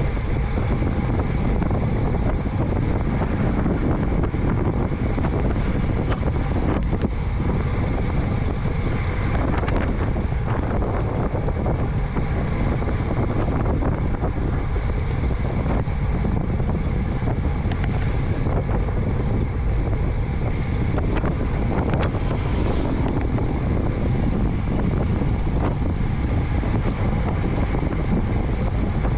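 Steady wind rush buffeting the microphone of a camera riding along on a road bike at about 25 mph. Two brief high chirps come through, about two and six seconds in.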